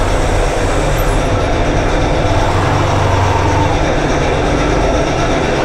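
Hero Xpulse 200's single-cylinder engine running steadily as the motorcycle rolls slowly at low speed, with a steady hiss over the low hum.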